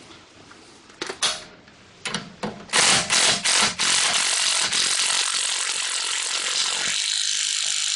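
Cordless impact wrench tightening the new 19 mm nut onto a sway bar end link: a few short trigger bursts, then a loud continuous run of about four seconds that stops suddenly as the nut comes up tight.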